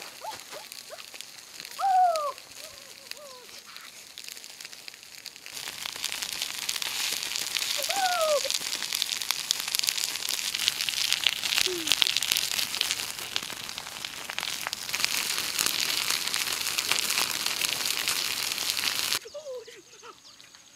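Wood fire crackling and chicken heads sizzling on a hot griddle over the flames: a dense crackling hiss full of small pops that starts about five seconds in and cuts off abruptly near the end. Before it, quieter outdoor sound with a few short falling calls, one loud one about two seconds in.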